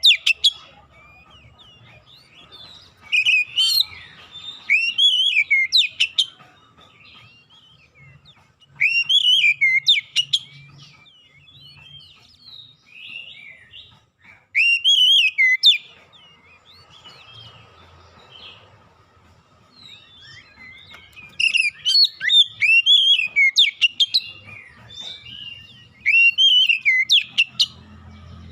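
Oriental magpie-robin singing in bursts of loud, whistled phrases that swoop up and down, separated by pauses of a second or more. A faint steady tone runs underneath.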